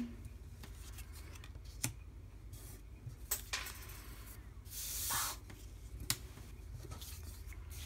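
Cardstock ephemera pieces being handled and laid down on a tabletop: a few light taps and one brief rustle of paper sliding about five seconds in.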